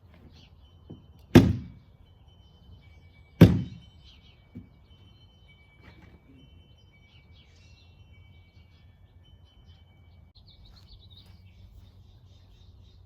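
Two loud, hollow thunks about two seconds apart, the plastic hull halves of a modular kayak being knocked and fitted together, with a few faint knocks after. Faint thin bird whistles carry on in the background.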